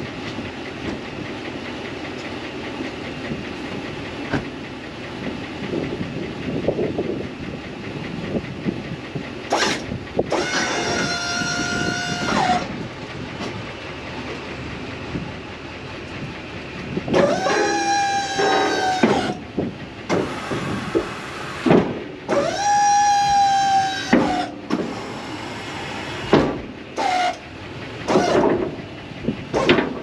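BOSS DXT V-plow's electric-hydraulic pump whining in bursts as the plow is worked through a function check. Three bursts of about two seconds each, then several short blips near the end, over a steady low running-engine rumble.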